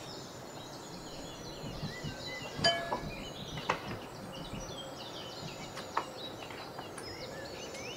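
Metal saucepan and serving spoon clinking while beans are dished onto a plate: three sharp knocks a second or two apart, the first the loudest and ringing briefly.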